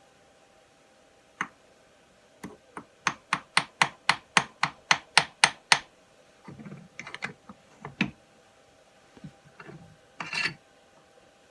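Thread cutting in aluminium: a quick even run of about fifteen sharp metallic clicks, about four or five a second, in the middle, then scattered clicks and short scraping rubs.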